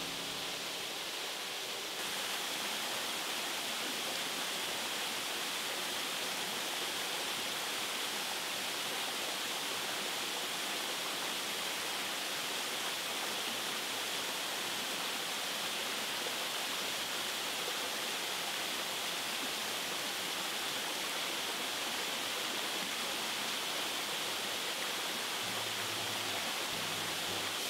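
Small waterfall splashing steadily onto rock: a constant, even hiss of falling water that gets louder about two seconds in.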